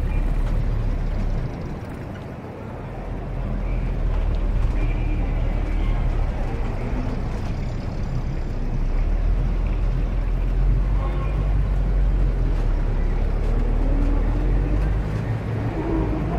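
City street traffic: a steady low rumble of car engines and tyres as vehicles pass along a busy boulevard.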